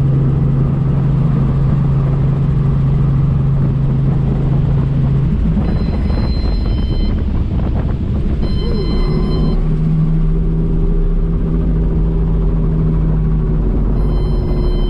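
Light helicopter in flight heard from inside the cockpit: a steady engine and rotor drone. About five seconds in the drone's steady pitch breaks off and changes. High warning tones then sound in short spells, twice and again near the end, which fits the engine failure that led to a forced landing.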